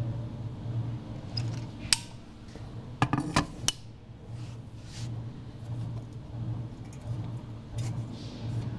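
Stainless steel parts of a drain channel clicking and clinking as they are handled and fitted together: a sharp click about two seconds in and a quick cluster of clicks about a second later, over a steady low hum.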